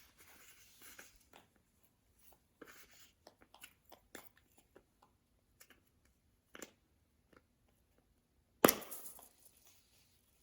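Slime being handled: scattered small clicks and pops, with one louder burst nearly nine seconds in.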